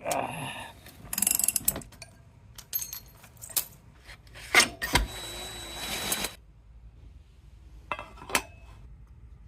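Metal tools and motorcycle parts being handled during chain and sprocket work: a series of clinks and clanks, a sharp knock about halfway through, then a longer rattle lasting nearly two seconds.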